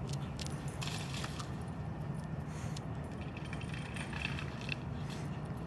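A steady low hum, with faint scattered rustles and light clicks and jingles from a dog running about on wood mulch with a large stick, its collar tags jingling.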